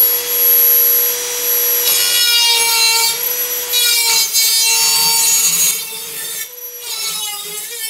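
Dremel rotary tool with a small cut-off disc running at a steady high whine, then cutting into the thin sheet-steel outer skin of the truck's door pillar: from about two seconds in the pitch wavers and dips under load with a gritty rasp, easing to a lighter cut about six seconds in.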